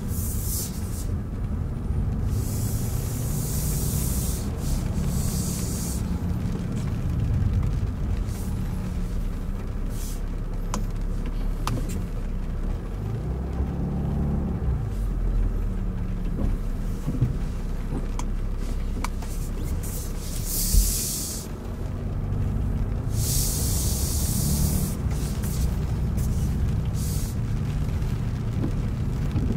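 Steady road and tyre rumble of a car driving on a wet motorway in the rain, with stretches of loud spray hiss early on and again near the end. A single thump about two-thirds of the way through.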